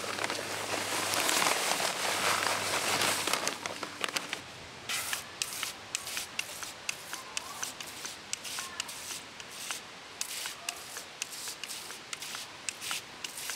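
Dry postcrete poured from its bag into a post hole, a dense rushing hiss that stops about three and a half seconds in. Then a garden-hose spray gun wets the mix in the hole, with irregular crackling ticks.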